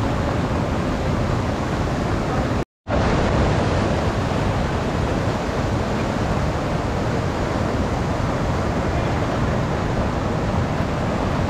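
Steady rushing of a fast river, an even wash of water noise, cut off briefly by a short dropout about three seconds in.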